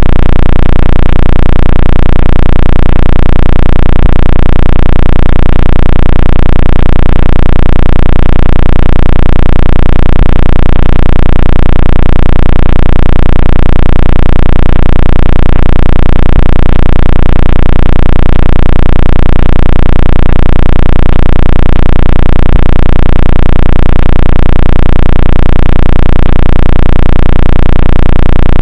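Synthetic water-ejection tone made to shake water out of a phone speaker: a very loud, low buzzing tone that pulses about twice a second.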